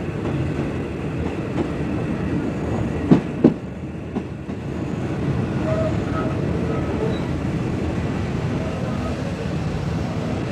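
Passenger train carriage rolling along the track, heard through an open window, with a steady low rumble. Two sharp clacks come close together about three seconds in, the wheels going over a rail joint.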